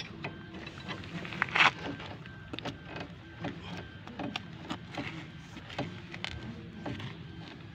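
Metal clicks and clinks of a combination spanner being worked on a nut at a car's front wheel hub, irregular, with the loudest clank about a second and a half in, over a steady low hum.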